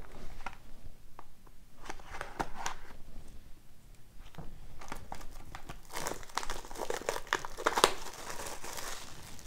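Plastic shrink-wrap on a cardboard hobby box crinkling and tearing as it is slit with a pocket knife and pulled off, in irregular crackles that get busier in the second half.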